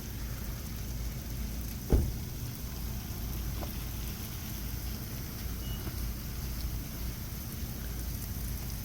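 Freezing rain falling steadily as fine ice grains, a continuous pattering hiss, over a steady low rumble. A single sharp knock about two seconds in.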